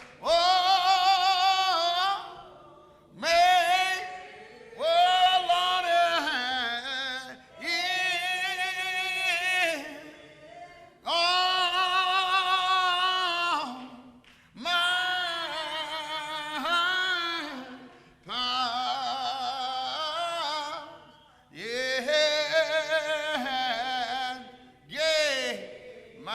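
Unaccompanied singing of a slow hymn: long, drawn-out notes with vibrato, in phrases of a few seconds each, with short pauses for breath between them.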